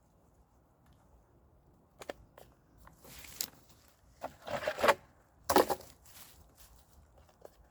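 Dry woody brush snapping and crackling as it is cut and pulled by hand, in a few short bursts starting about two seconds in, the loudest in the middle.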